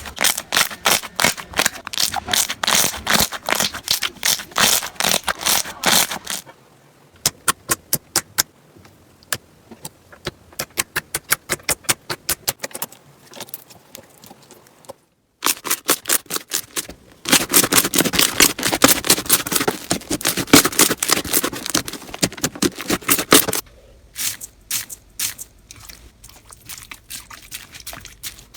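Slime being squeezed and pressed by hand: rapid runs of crackling, clicking pops. Several short clips follow one another, with sudden changes in loudness at the cuts.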